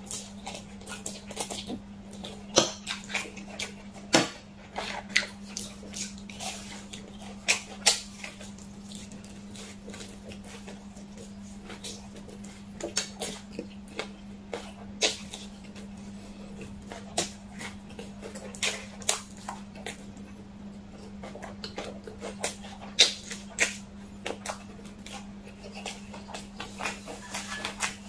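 Close-miked eating sounds: spicy fire noodles slurped and chewed, and sauced fried chicken bitten and chewed, making an irregular run of sharp wet clicks and smacks. A steady low hum runs underneath.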